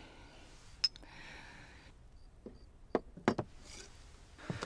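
Two porcelain wine cups clinking once in a toast about a second in, with a short high ring. A few sharp knocks follow around three seconds in.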